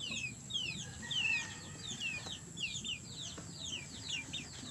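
Chicks peeping: a steady string of high, short, falling peeps, two or three a second.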